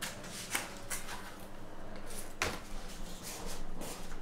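Rummaging: a series of short knocks and clatters of objects being moved about, the loudest about halfway through.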